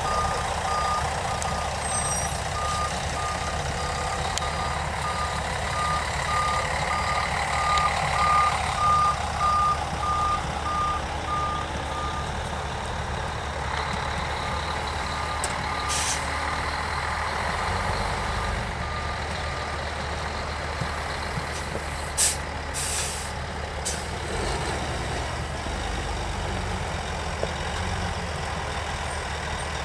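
Freightliner hi-rail dump truck engines running with a backup alarm beeping steadily; the beeping fades about halfway through and stops about two-thirds of the way in. Short hisses of air-brake release come in after the halfway point, the loudest about two-thirds through.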